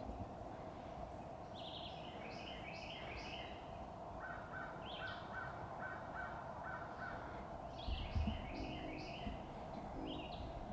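Wild birds calling in woodland: bursts of chirping notes, and in the middle a run of about nine evenly spaced calls, over a steady background hum. A low thump comes about eight seconds in.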